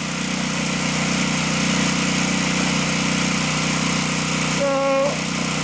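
Single-cylinder four-stroke Briggs & Stratton lawnmower engine running steadily and loud under about 2 pounds of load from a water-brake dynamometer.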